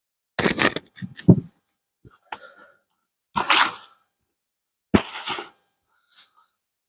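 Hands digging through potting compost in a potato bucket: several short rustling scrapes, a few with a dull thump of the container or a potato, in bursts with gaps between.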